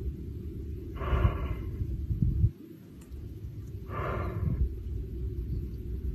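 A lion breathes out in short, noisy puffs, twice, about three seconds apart, over a steady low rumble.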